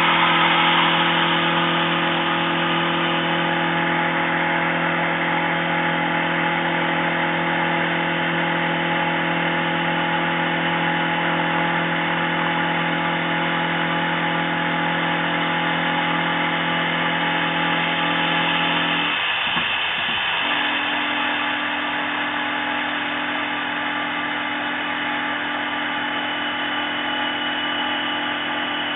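Small CNC milling machine adaptive-milling steel: a steady machining whir made of several fixed tones over a rough cutting hiss. About two-thirds of the way through, the tones drop out briefly, then resume with a slightly different set of pitches.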